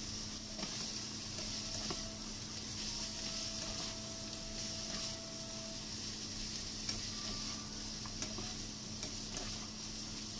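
Pork, cabbage and carrots sizzling in a frying pan as they are stir-fried with a wooden spatula and a turner, with a few light clicks of the utensils against the pan.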